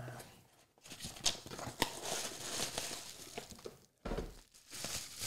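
Cardboard box and paper packaging being opened and handled: irregular rustling and crinkling with scattered light taps and clicks, broken twice by a moment of near quiet.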